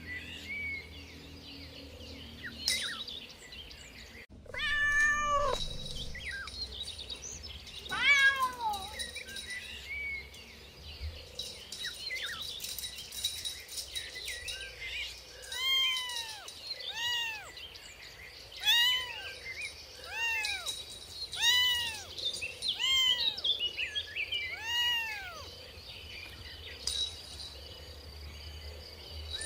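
Kittens mewing: short, high-pitched mews, a few scattered early on and then a run of about eight, roughly one a second.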